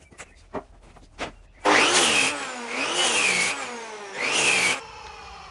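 Mafell NFU 50 power cutter, run along a guide rail, cutting a tenon shoulder in green oak. A few short clicks come first, then about a second and a half in the cutter runs loudly for about three seconds. Its pitch dips and recovers three times as it works through the wood, then it cuts off.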